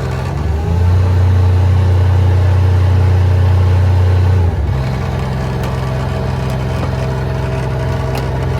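An engine runs steadily; about a second in, the Vanair compressor is switched on and a louder, lower drone comes in and holds for about four seconds, then cuts off suddenly as it is switched off.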